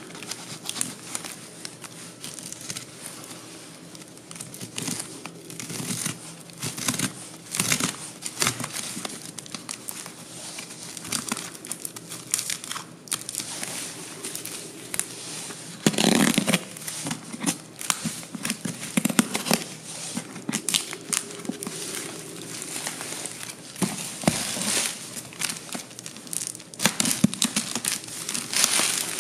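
Heavy packing tape being peeled and torn off a cardboard shipping box by hand: irregular crackling and crinkling, with several louder rips from about halfway through.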